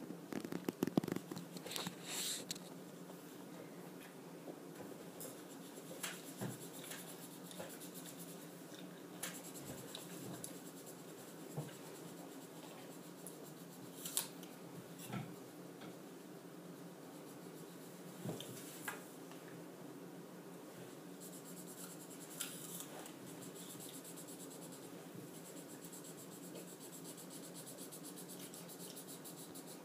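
Marker scratching back and forth on paper as an area is coloured in, with a few light knocks now and then.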